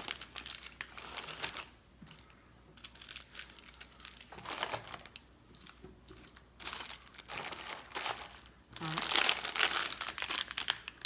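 Plastic snack wrappers crinkling and rustling as they are handled and gathered up, in uneven bursts with a short lull, loudest near the end.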